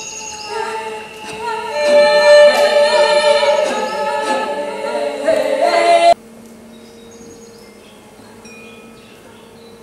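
Layered singing: several female vocal lines overlapping and wavering in pitch, the performer's live voice mixed with her own recorded and remixed voice. It swells and then cuts off abruptly about six seconds in, leaving only a faint steady hum.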